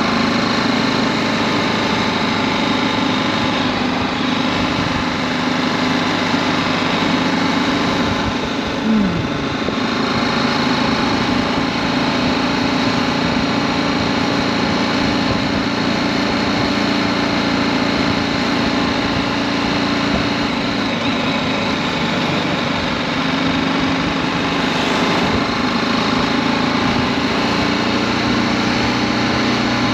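BMW G310GS motorcycle's 313 cc single-cylinder engine running steadily while ridden, with a brief drop in pitch about nine seconds in.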